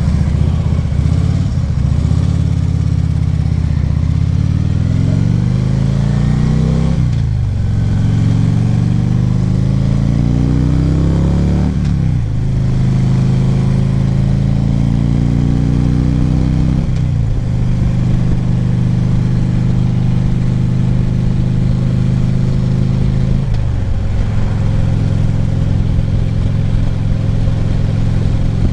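Harley-Davidson Ultra Classic Limited's V-twin engine pulling away and accelerating, rising in pitch through each gear. Four upshifts come about five seconds apart, and it then settles into a steady cruise, with wind rush on the helmet microphone.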